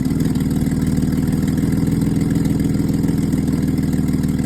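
Nissan GQ Patrol engine idling steadily, with an exhaust leak from a blown exhaust gasket. The alternator is giving no charge, so it is running off a draining battery and close to stalling.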